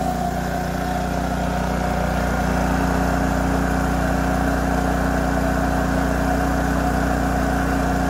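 Kipor KGE3000TI inverter generator's engine running steadily under a 1500-watt load, freshly brought back to life by a carburetor cleanout.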